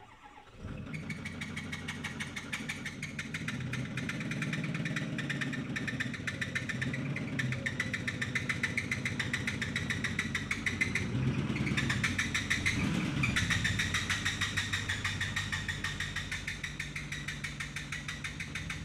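Ford 6.4 L Powerstroke V8 turbodiesel of a 2009 F-250 Super Duty running at low speed as the truck creeps along, with a rapid, even ticking over the engine note. The owner blames the ticking on a misfire; it sounds almost like an exhaust leak. The engine grows louder about halfway through as the truck draws near.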